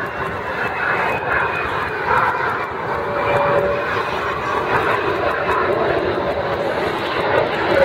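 Lockheed Martin F-22 Raptor's twin Pratt & Whitney F119 turbofan jet engines, heard steady and loud as the fighter flies overhead in a steep nose-up climb. A faint high whine drifts slightly down in pitch over the first few seconds.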